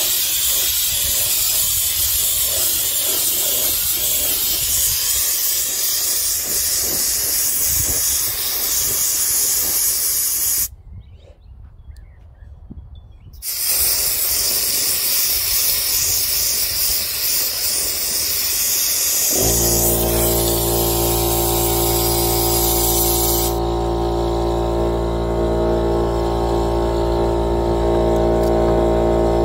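Compressed air hissing from a siphon-feed spray gun as glaze is sprayed, broken by a pause of about three seconds partway through. About two-thirds of the way in, the air compressor's motor starts with a steady hum, and the spray hiss stops a few seconds later while the compressor keeps running.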